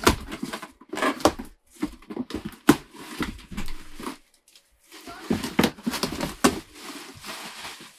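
Plastic air-pillow packing crinkling and rustling as it is handled and pulled out of a cardboard box, with sharp knocks of the cardboard flaps. The handling comes in irregular bursts, with a short pause a little past the middle.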